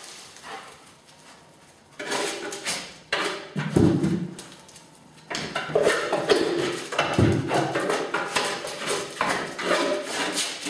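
A German shepherd searching at a wooden box: a busy run of knocks and scrapes on wood, with two heavier thumps.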